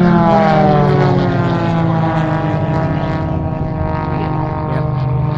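Aerobatic propeller plane's engine and propeller at full power, the pitch falling over the first few seconds as the plane climbs vertically away, then holding steady.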